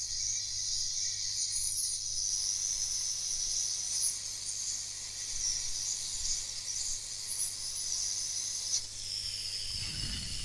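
Steady high hiss with faint irregular crackle as flux-coated pins of a surface-mount Super IO chip are reflowed during resoldering. A sharp click comes near the end, followed by a low thump.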